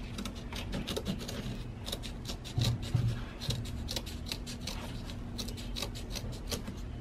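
Small scissors snipping through canvas fabric in a quick series of short cuts, trimming the excess applique material close to the stitching in an embroidery hoop.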